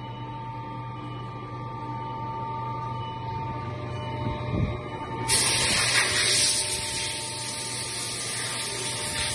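A steady low machine hum, then about halfway through a compressed-air blow gun starts up with a loud, steady hiss, blasting coolant off a freshly milled metal mould plate on the CNC mill's table.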